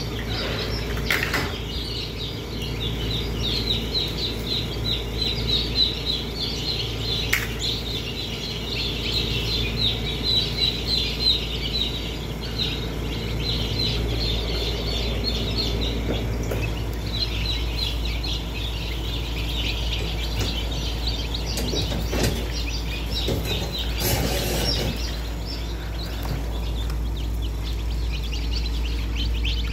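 Dozens of newly hatched chicken chicks peeping all at once, a dense, unbroken chorus of rapid high chirps, over a steady low hum.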